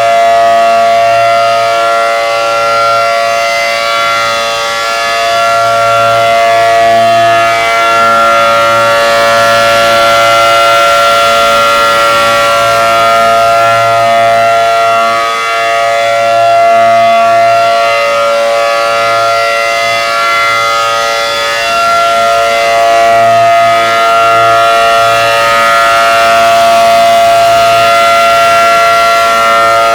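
ACA Allertor 125 electronic outdoor warning siren sounding its steady Alert signal: a loud, unbroken chord of several held tones that swells and fades slightly every several seconds.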